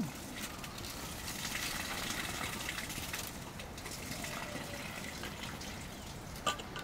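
Water being poured into a metal pot: a steady rushing splash with fine crackle.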